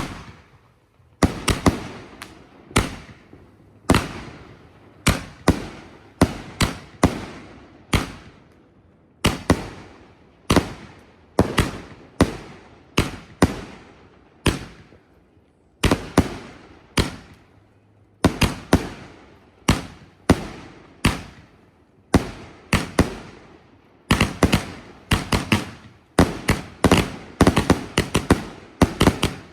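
A King of Willow 66-shot firework cake firing: a long series of sharp bangs, each trailing off, about one or two a second, coming faster and closer together in the last few seconds.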